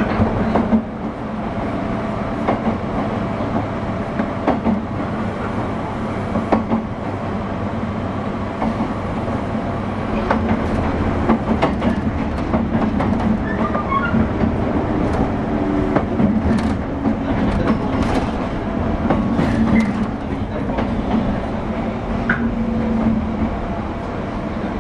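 Running sound of a JR 201 series electric train, recorded aboard the motor car MoHa 200-200: a steady rumble and hum with scattered sharp clicks as the wheels pass over rail joints. There is no chopper whine, since this car carries no chopper control.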